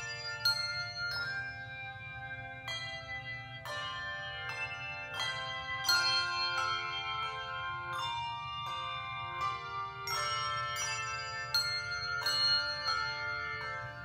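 Handbell choir playing a slow piece, several bells struck together in chords that ring on with a long decay, over a faint steady low hum.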